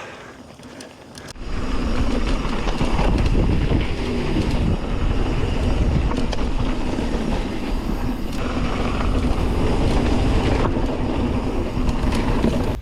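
Mountain bike rolling fast down a dirt trail, rattling over the bumps. It starts suddenly about a second and a half in and stops abruptly at the end.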